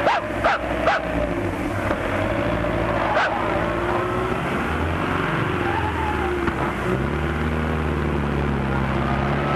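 Car engine running as the car drives along, a steady low hum that climbs a little in pitch about seven seconds in. There are a few short, sharp dog barks in the first second and another about three seconds in.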